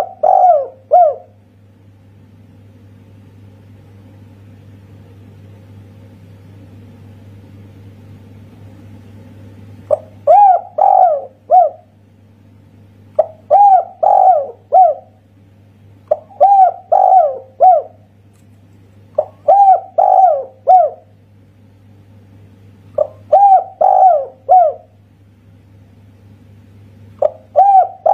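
Spotted dove (tekukur) cooing in repeated phrases of about four notes: a short opening note, two longer swooping coos and a single short closing 'kuk', the one-kuk ('kuk satu') song form. One phrase ends about a second in; after a pause of some nine seconds, six more follow at roughly three-second intervals.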